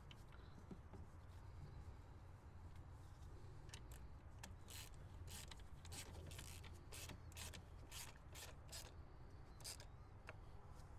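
Faint light clicks and scrapes of small screws being fitted into a plastic PCV valve housing on an engine, about fifteen short ticks clustered from a few seconds in until near the end, over a low steady hum.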